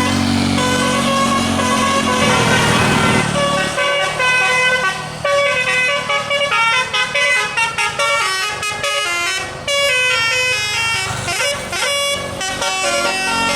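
Bus telolet musical air horn playing a fast melody of short, changing notes, with the bus engine running under it for the first few seconds.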